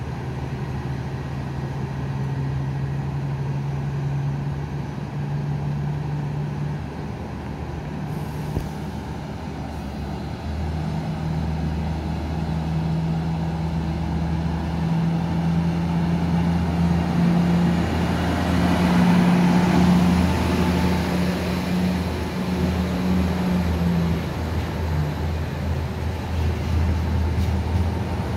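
Hitachi-built Trenitalia Intercity multiple unit pulling into a station platform: a steady low hum from its running gear that grows louder as it draws alongside, with a faint high whine near the end.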